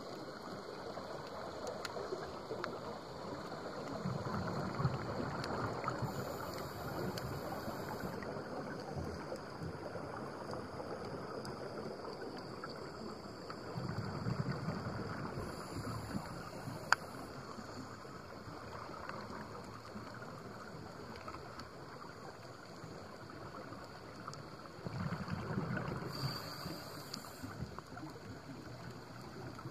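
Muffled underwater noise heard through a camera housing, with a scuba diver's regulator breathing: three bubbling exhalations about ten seconds apart, each near a brief high hiss.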